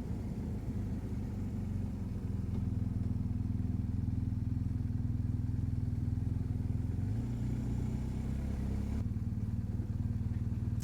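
BMW R1250GS boxer-twin motorcycle engine running steadily at low revs while riding. The engine note shifts about seven seconds in.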